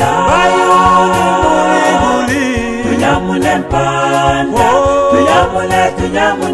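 Choir singing in several voices, holding long notes, over a steady beat.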